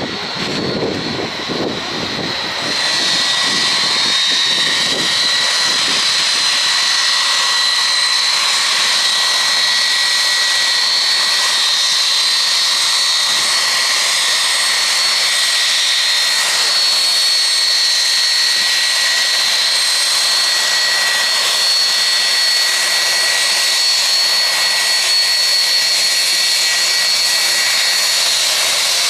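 Boeing 757 turbofan engines running at low power as the airliner taxis close by: a steady jet noise with a high-pitched whine, swelling a couple of seconds in and then holding level.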